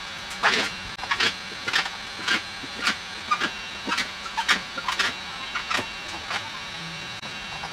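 Short rubbing strokes on wet paint protection film as it is worked down along the car hood's edge, about two a second.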